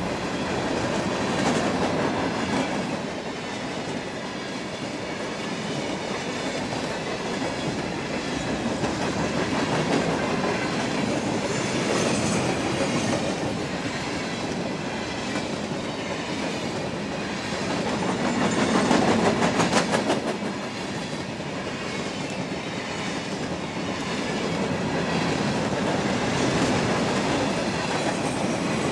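Cars of a CSX mixed freight train (gondolas, covered hoppers and tank cars) rolling past close by, with a steady rumble of steel wheels and clickety-clack over the rail joints. There is a louder stretch of fast clacking about two-thirds of the way through.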